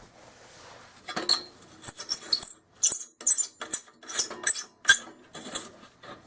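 Metal clinks and rattles of a Coleman lantern's sheet-metal hood and bail being fitted back on and tightened down, in a quick run of small knocks.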